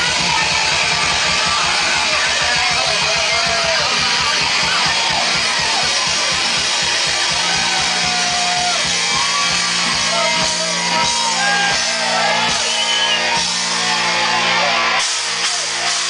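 Heavy metal band playing live: distorted electric guitars and bass over fast, dense drumming. The drumming drops away about a second before the end.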